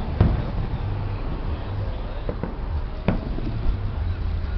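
Scattered bangs of fireworks, a few sharp pops with the clearest about three seconds in, over a steady low rumble.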